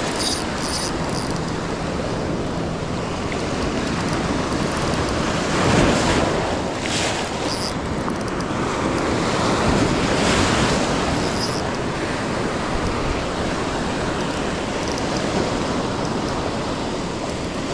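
Ocean surf breaking and washing up the beach, with wind buffeting the microphone. The wash swells louder about six seconds in and again about ten seconds in.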